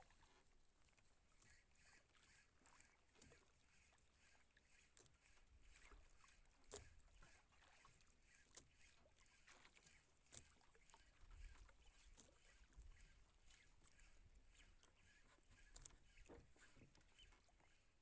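Near silence: faint outdoor background with a thin steady hiss and a few scattered faint ticks.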